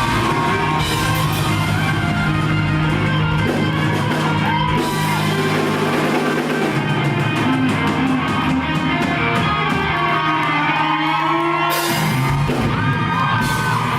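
Rock band playing live in a large hall: electric guitar and sustained bass over drums, with voices yelling along.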